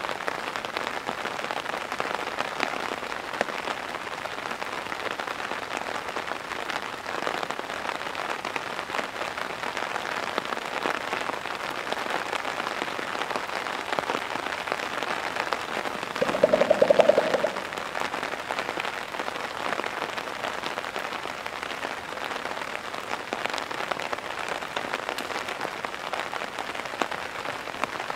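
Heavy rain falling steadily. A little past halfway, a western lowland gorilla drums on his chest: a quick run of hollow pops lasting about a second.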